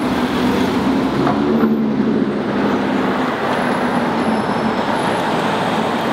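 Street traffic with car engines running steadily as a Lotus Evora and an SUV drive past.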